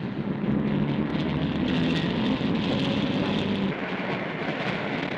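Steady, dense rumbling noise with a low droning hum underneath, an added sound-effect track for the animation.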